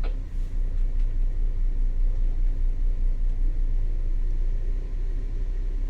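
Low, steady rumble of a motor vessel's diesel engine running at low revs.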